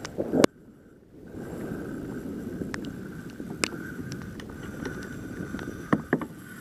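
Choppy water slapping and sloshing against a plastic kayak hull, with wind on the microphone and a faint steady high whine. A sharp knock about half a second in, followed by a second of near quiet, then scattered small clicks and knocks.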